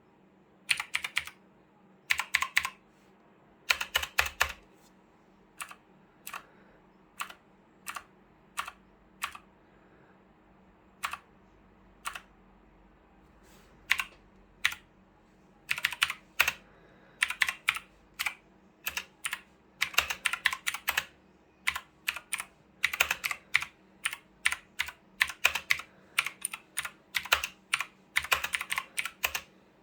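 Keychron C2 mechanical keyboard with clicky blue switches being typed on. Runs of rapid keystrokes come in bursts, with a slower stretch in the middle of single key presses a little under a second apart.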